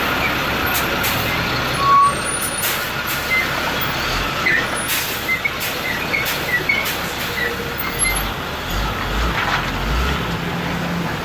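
Busy city street traffic: a steady wash of engines and tyres, with a brief loud tone about two seconds in and a heavier low engine rumble from about eight seconds in.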